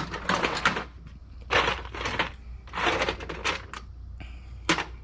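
Small screws rattling and clicking as they are rummaged through by hand, in a few short bursts with a single sharp click near the end.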